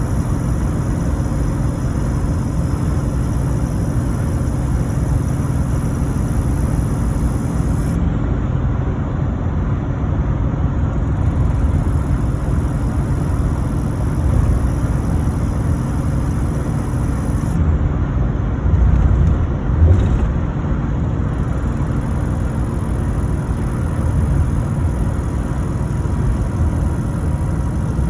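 LBZ Duramax 6.6 L V8 turbodiesel running steadily under engine braking while towing downhill, with a faint steady whine over the low rumble. The whine/squeal is taken for a turbo noise that appears when tow/haul mode engine-brakes to hold speed downhill.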